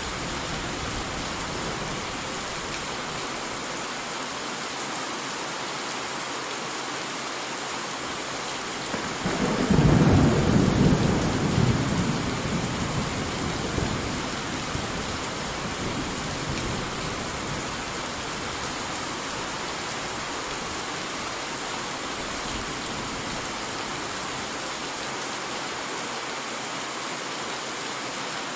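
Steady rain falling throughout, with one roll of thunder about nine seconds in that rumbles loudest for a couple of seconds and then fades away over several more.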